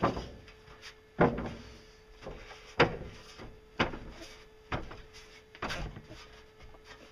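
Thin sheet steel flexing under hand pressure as it is bent toward a tube: sharp metallic pops or knocks about once a second, six in all, over a faint steady hum.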